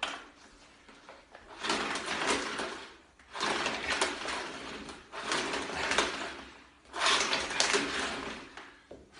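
Household vacuum cleaner, which by its owner's account will not switch on, giving a click and then four short bursts of whirring, rushing noise, each one to two seconds long and dying away.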